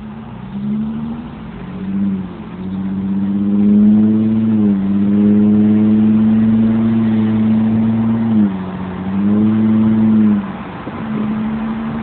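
Lexus IS 250's 2.5-litre V6 revving through an aftermarket F Sport intake and exhaust with the resonator deleted for a straight pipe. A few short blips come first, then the engine climbs and holds a steady high note, dips briefly twice, and settles lower near the end.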